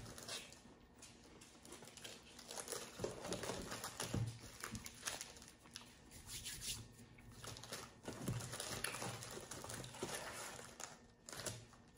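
Plastic snack wrappers crinkling and rustling as they are picked through and handled, with a few soft knocks.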